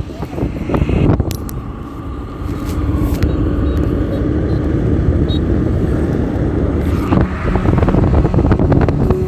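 Wind buffeting the microphone over low road and engine noise from a moving scooter, with a few sharp knocks, one about a second in and others near the end.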